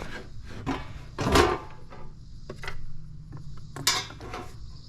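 Knocks, scrapes and clatter of intake pipe parts being handled and pushed into place in a car's engine bay, with two louder knocks about a second in and near four seconds in.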